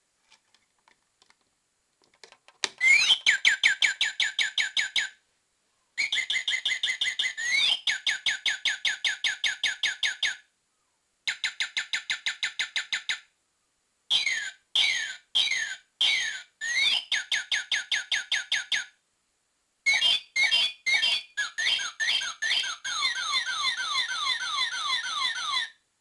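Battery-operated plastic singing-bird toy playing its electronic birdsong: fast trains of beeping chirps, some with rising and falling sweeps, in five phrases with short pauses between them. The chirps sound more like arcade-game sound effects than a real bird.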